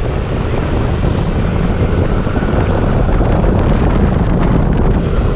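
Wind buffeting the microphone over the steady rumble of a vehicle driving along a road.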